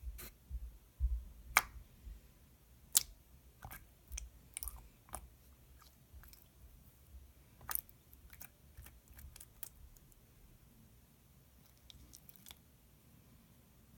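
Clear jiggly slime being squished and poked by hand, giving irregular sticky clicks and small pops that thin out in the last few seconds.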